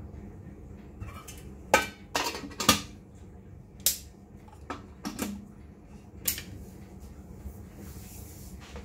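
Chrome 1976 Swan automatic DeLuxe electric kettle being handled: a run of sharp metal knocks and clinks as it is set down, the loudest about two to three seconds in, then a few more clicks and knocks as the mains connector is pushed into the kettle's socket.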